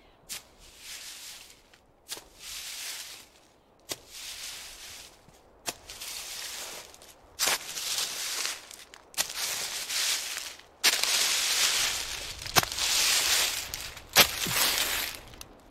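Horror sound effect of a monster walking with a dragging foot: a sharp step, then a scraping drag of about a second, repeating about every 1.7 s and growing louder.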